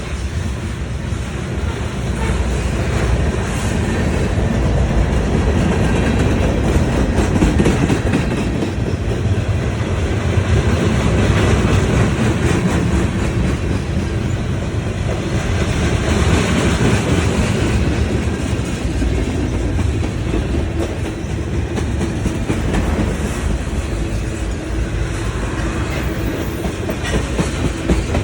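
Train running, a steady loud rumble with wheels clattering over the rails.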